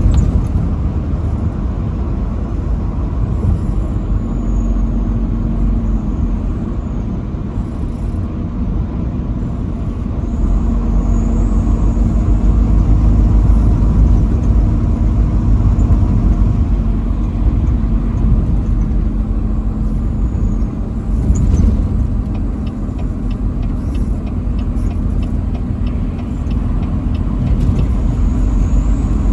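Semi-truck driving at highway speed: a steady, loud low rumble of engine and tyres. About two-thirds of the way through there is a short sharp burst, followed by a run of faint quick ticks.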